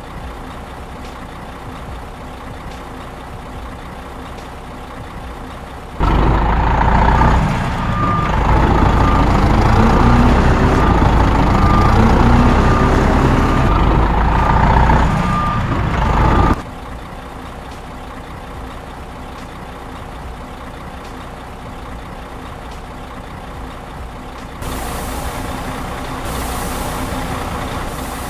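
Heavy truck engine running steadily; for about ten seconds in the middle it is much louder, with the engine pitch rising and a reversing alarm beeping at an even pace. A hiss joins the engine near the end.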